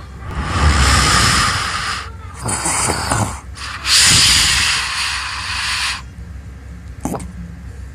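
Loud snoring in sleep. Long hissing breaths alternate with a lower, rattling snore about two and a half seconds in, then a short snort near the end.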